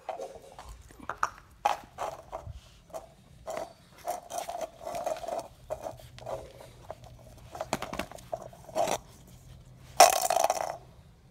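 Mudhol Hound puppies tussling and chewing at a coconut husk on concrete: a busy run of scrapes, chewing and claw clicks. A louder burst of rustling comes close to the microphone about ten seconds in.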